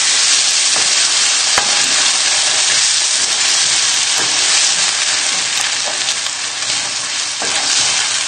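Chopped tomatoes sizzling in a hot non-stick frying pan as a wooden spoon stirs them through, with a couple of faint knocks.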